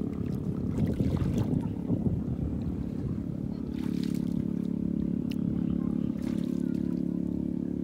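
Choppy sloshing of a person wading through shallow water. From about four seconds in, a steady low drone of a boat engine sets in and holds.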